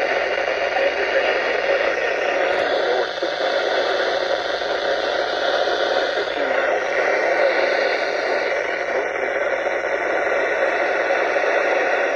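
Steady radio hiss from a Midland ER310 weather radio tuned to a weak, distant NOAA Weather Radio signal, with no voice or alert tones coming through. The hiss shifts in character a couple of times.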